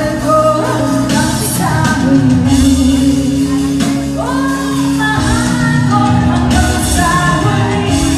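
A woman singing a pop ballad live into a handheld microphone, holding and bending long notes over instrumental accompaniment with sustained chords and occasional drum hits.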